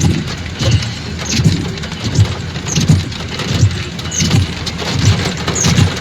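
Heavy rain on a moving car, heard from inside the cabin, with the windshield wipers sweeping fast, about once every three-quarters of a second.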